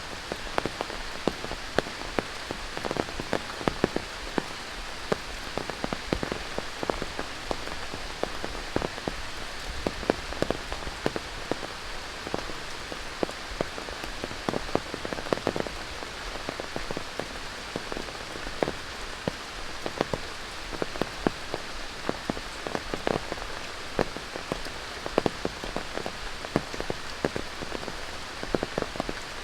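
Steady tropical rain with a continuous hiss, broken by frequent sharp drops striking close by at irregular intervals.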